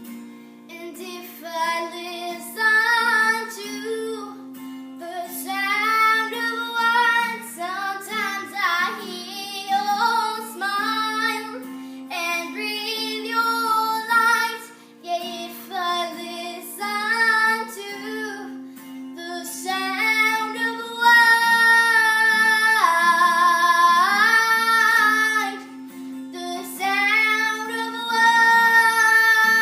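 Female voice singing a slow melody over acoustic guitar, with several long held notes in the second half.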